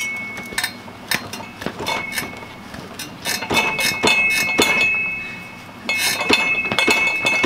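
Manual tire changer's steel bar being levered around the center post to work an ATV tire off its rim: repeated metallic clinks and knocks, with a high squeal that comes and goes as the parts drag without lubricant.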